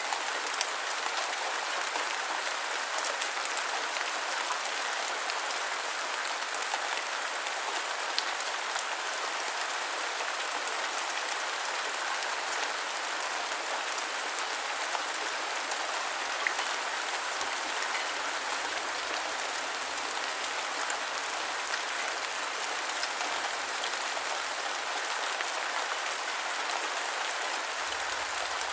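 Steady rain falling on a surface, a constant hiss with scattered individual drop patters.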